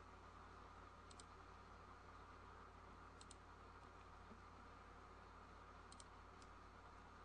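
Faint computer mouse clicks over a low steady hum: three double clicks, about a second, three seconds and six seconds in, with one more single click just after the last.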